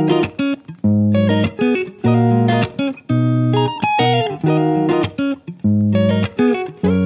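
Instrumental background music: plucked notes with a bass line in a steady rhythm.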